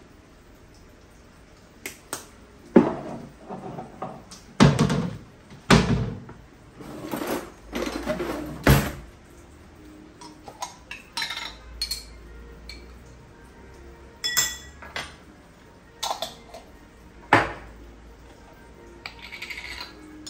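Kitchenware clattering: pots, pans and utensils knocked and set down in irregular bursts, with a ringing metallic clink about two-thirds of the way through.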